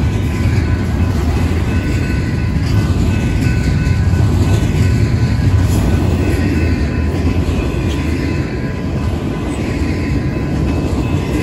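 BNSF freight train rolling past, a steady loud rumble that does not let up.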